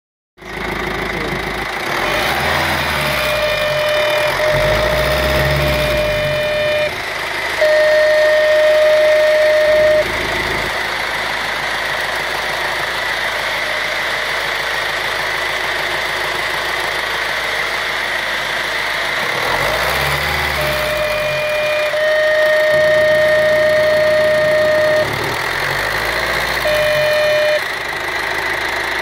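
Turbocharged car engine running with the bonnet open, its speed rising and falling in two spells, while a steady high whistle-like tone comes and goes abruptly in spells of a few seconds.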